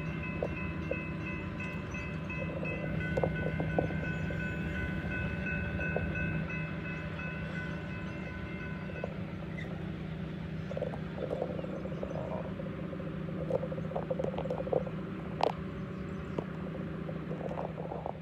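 Railroad grade-crossing warning bell ringing steadily over the low rumble of a passenger train moving away. The bell stops about halfway through as the crossing gates rise, leaving the rumble with scattered small clicks and ticks.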